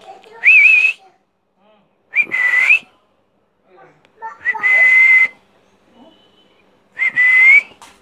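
Four short breathy whistles, each a single clear note that wavers or rises slightly at its end, with pauses of about a second between them.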